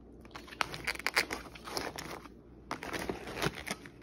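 Plastic grocery packaging and bags crinkling and rustling as the food is handled, in irregular crackles with a short lull a little past halfway.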